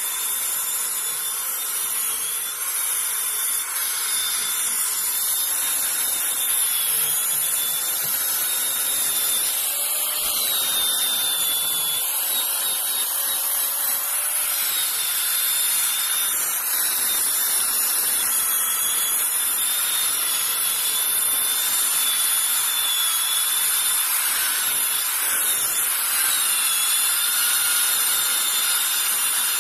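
Electric drill spinning a red abrasive wheel against carved wood: a steady motor whine over the hissing scrub of the wheel on the wood, its pitch wavering slightly as the wheel is worked into the carving.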